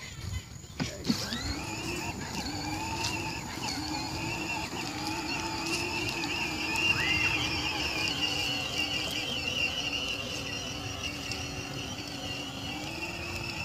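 Battery-powered children's ride-on quad driving on grass: its electric motor and gearbox whine steadily, starting about a second in.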